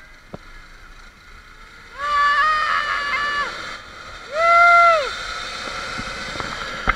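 A zipline rider yelling in excitement: two long, high-pitched whooping yells, about two seconds in and again near five seconds. Behind them is a steady rushing noise of the ride along the cable that starts about two seconds in.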